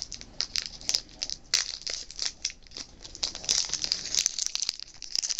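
Foil wrapper of a Pokémon TCG booster pack crinkling and crackling irregularly as it is worked open slowly by hand, with a little tearing, to keep the pack from ripping badly.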